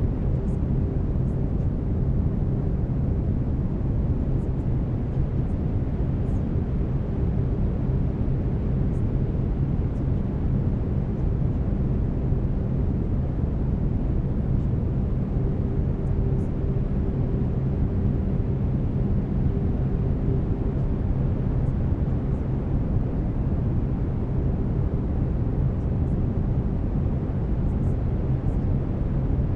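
Steady brown noise, a deep even rush weighted toward the low end, with faint low steady tones running through it, the carrier tones of binaural delta-wave beats.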